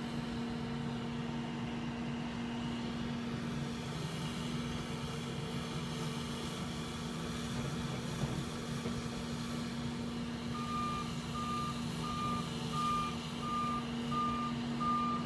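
Bobcat skid-steer loader running steadily with a low drone, heard through a window. About ten seconds in its reversing alarm starts beeping, about two beeps a second: the loader is backing up.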